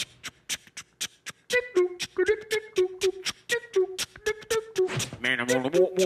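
Vocal beatboxing: a fast, even run of percussive mouth clicks and snare-like beats, with a hummed melody joining about a second and a half in and a sung vocal line near the end.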